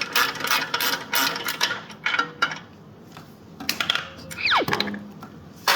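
Socket ratchet wrench clicking in quick repeated strokes, about four or five clicks a second, while a fastener on the motorcycle exhaust is worked loose; the clicking stops about two seconds in. Then a few light metal clinks of tools, a short squeak falling in pitch, and a single sharp clack near the end.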